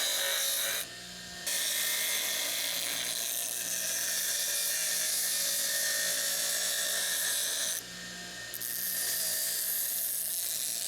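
Power grinder grinding the steel of a rebar folding-fork blank and handle, a steady hissing whine that drops off briefly twice, about a second in and again near eight seconds, as the work comes off the abrasive.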